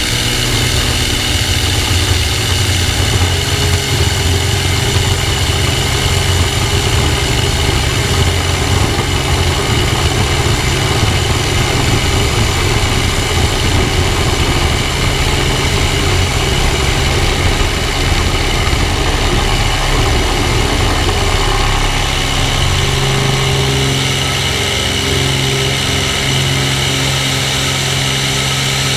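Cirrus SR22's six-cylinder piston engine and propeller running steadily at full takeoff power, with a low rumble from the wheels rolling on cracked asphalt. The rumble drops away about 23 seconds in as the plane lifts off, leaving the engine and propeller.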